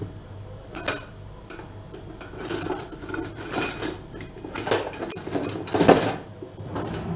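Kitchen utensils and dishes clinking and clattering: several separate knocks and clinks, the loudest near the end.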